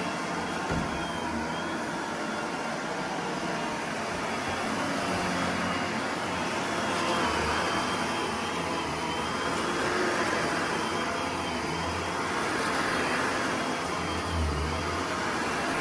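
Shark AZ950UK upright vacuum cleaner running with a steady motor whine, swelling and easing about every three seconds as it is pushed back and forth across the floor.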